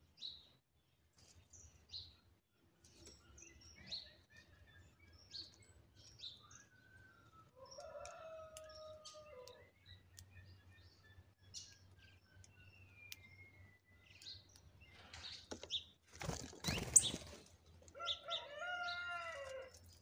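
Small birds chirping in short calls, with a loud flurry of wing flaps about seventeen seconds in as birds come and go at the feeder. Twice, near eight seconds and near eighteen, a longer, lower call falls over a second or two, like a rooster crowing at a distance.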